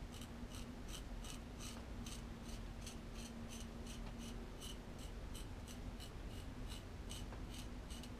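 Small ceramic knife blade scraping through lathered beard whiskers in short, even strokes, about three a second, faint. The blade pulls at the hair but still cuts it.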